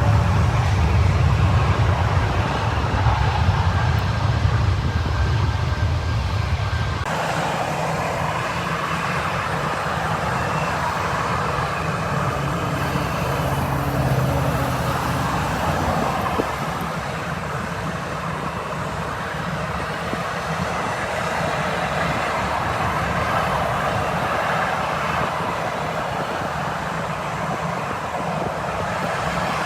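Airliner jet engines heard from the ground. For about the first seven seconds there is a heavy low rumble. Then the sound cuts abruptly to another aircraft, a Frontier Airlines airliner, whose engines give a steadier, higher-pitched noise.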